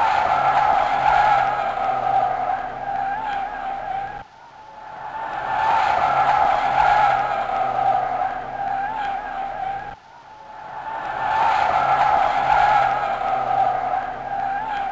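Volvo MCT125C skid steer loader working, a loud high whine over the machine's running that swells and fades. The same stretch of about six seconds repeats, breaking off abruptly near the start of each repeat: a looped recording.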